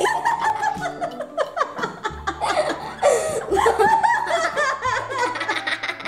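A young boy laughing in repeated fits of giggles.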